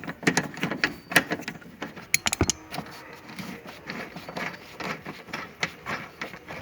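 Irregular metallic clicks, clinks and knocks of hand tools on the car's seat belt anchor bolts and trim as the seat belt assembly is being unbolted, with a sharper knock a little past two seconds in.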